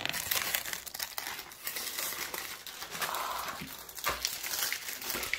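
Thin plastic cherry punnet being opened by hand, its lid and label pulled back with continuous crinkling and crackling of the plastic.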